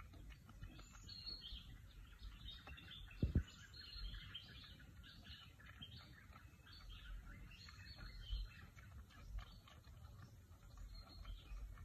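Small birds chirping in a busy background chorus, with a single short, low thump about three seconds in.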